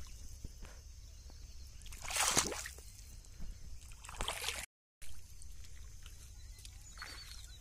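Wet paddy-field mud and water sloshing, with two short rushes of noise about two and four seconds in, over a low steady rumble.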